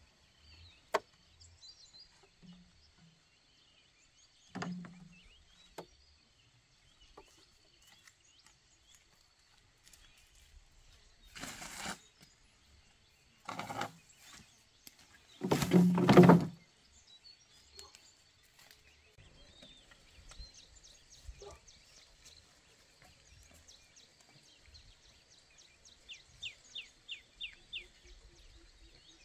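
Hollow bamboo poles knocking and clattering as they are handled and dropped, with scattered knocks and a loud clatter lasting about a second a little past halfway. Near the end a bird gives a quick run of chirps.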